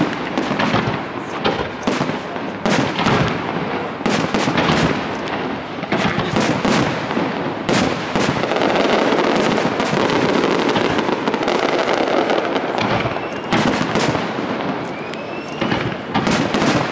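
Aerial firework shells bursting one after another in sharp bangs, with a thicker stretch of continuous crackling around the middle and a faint rising whistle near the end.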